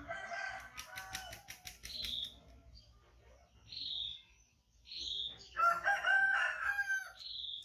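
A rooster crowing twice, the second crow louder, near the end, while a small bird gives a short high chirp every second or two.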